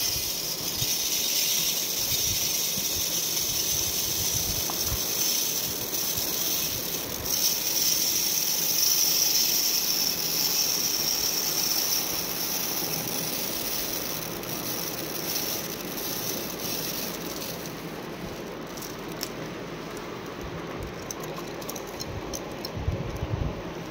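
Raw rice grains pouring steadily onto an enamel plate, a continuous rattling hiss that thins to scattered ticks near the end.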